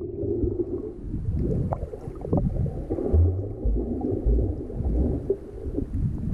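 Muffled underwater sound of seawater heard through a submerged camera: low sloshing and gurgling with a few dull knocks and thuds.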